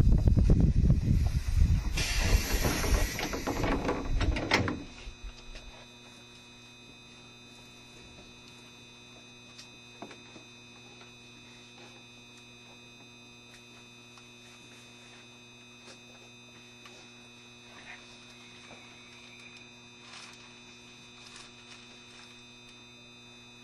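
JR Shikoku 7200 series electric train coming to a stand at a station: a few seconds of loud running and braking noise with a burst of air hiss about two seconds in, then it stops abruptly about five seconds in. After that the train stands still with a steady electrical hum and a few faint clicks.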